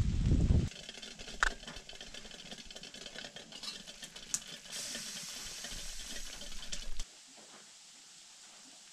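Water boiling in a steel mug on a wood stove's hot plate: bubbling and hissing with small clicks and rattles, the hiss growing about halfway through. It opens with a brief low rumble and drops to quiet room tone about seven seconds in.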